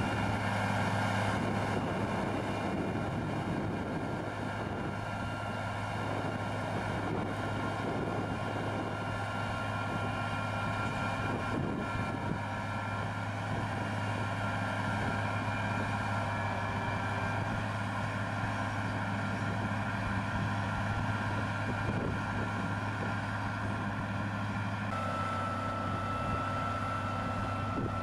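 Tractor engine running steadily with an even hum. A high tone in it steps up slightly about 25 seconds in.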